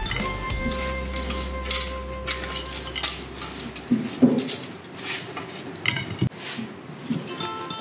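Crispy air-fried pork ribs tumbling from a metal air fryer basket onto a ceramic plate, with metal tongs clinking. Irregular clatter and knocks throughout.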